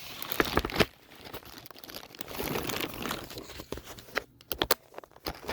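Rustling and crinkling of a laptop bag being handled as a laptop is packed into it, with sharp clicks and knocks, a cluster about a second in and another near the end.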